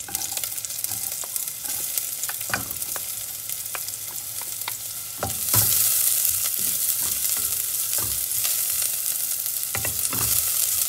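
Chopped onions and garlic sizzling in hot cooking oil in a stainless steel pot, stirred with a wooden spatula, with scattered knocks of the spatula. The sizzle turns louder about five and a half seconds in, as the onions go into the oil.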